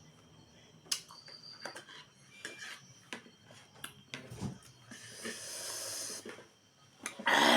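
Close-miked eating sounds: wet mouth clicks and chewing, a long hissing slurp about five seconds in, and a louder noisy burst near the end.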